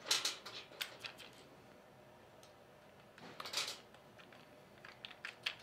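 Terminal insulators clicking and scraping against the studs and terminal board of a Carrier 06E compressor as they are fitted by hand: a few sharp clicks near the start, a brief scrape about three and a half seconds in, and a quick run of clicks near the end.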